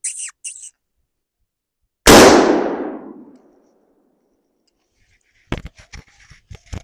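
A single gunshot at a black bear, about two seconds in: one sharp crack that fades away over about a second and a half. Near the end come several short sharp clicks.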